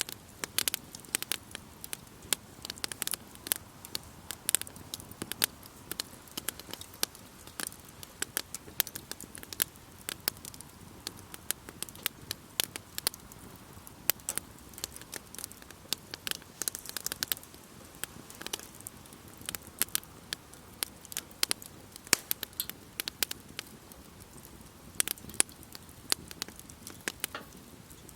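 Campfire burning, crackling with many irregular sharp pops and snaps over a low, steady hiss.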